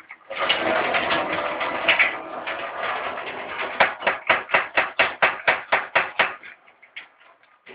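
Water sloshing and gurgling inside a handheld ceramic-cartridge water filter housing as it is shaken, turning into a quick run of even, rhythmic sloshes, about five a second, that dies away about two-thirds of the way through.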